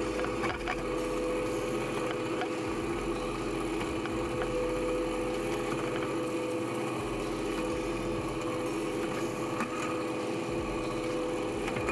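Bench drill press motor running at a steady hum while its bit drills small holes through a carbon-fibre dashboard panel, with faint ticks from the cutting.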